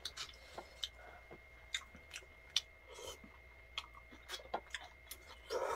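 Two people eating: quiet chewing with scattered light clicks of chopsticks against plastic food containers.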